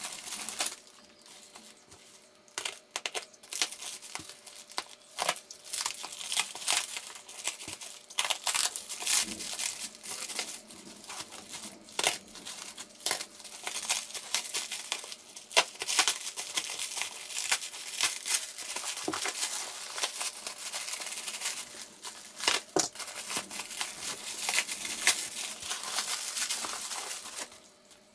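Plastic packaging crinkling and crackling as a parcel is unwrapped by hand: a plastic mailer bag and bubble wrap rustle, with irregular sharp snaps and tearing of packing tape. It is quieter for a moment about a second in and fades out just before the end.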